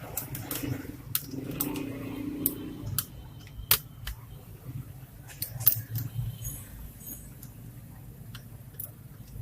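HP Pavilion G4 laptop being taken apart by hand: scattered sharp clicks and light clinks of small metal and plastic parts, a dozen or so spread irregularly, over a low steady hum.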